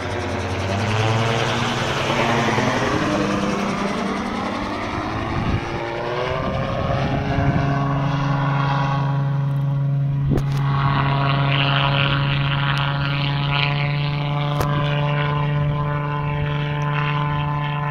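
Homemade gyrocopter in flight, its Subaru EA81 flat-four car engine and propeller running steadily. The engine note shifts in pitch over the first several seconds, then holds a steady drone.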